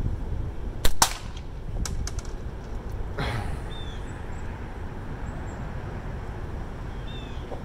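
A slingshot shot: two sharp cracks about a tenth of a second apart, the flat bands snapping on release and the steel ball striking the metal target, followed a second later by a few lighter metallic clicks.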